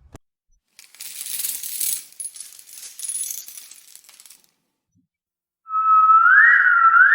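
Horror sound-effect samples: a jingly, rattling clatter lasting about three and a half seconds. After a short gap, near the end, a loud, high wavering cry-like tone sweeps up in pitch twice.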